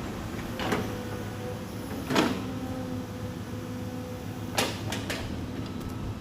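Hydraulic excavator running steadily while handling logs, with four heavy knocks and metallic clanks that ring briefly; the loudest comes about two seconds in.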